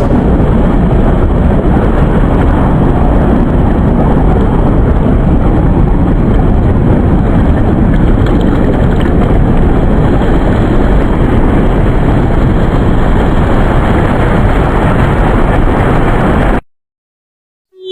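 Loud steady rushing noise, heavy in the bass, that cuts off suddenly about sixteen and a half seconds in.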